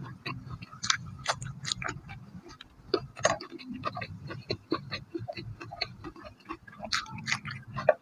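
Irregular small clicks and crackles of eggshell being picked and peeled by hand off a boiled fertilized egg (balut), close to the microphone.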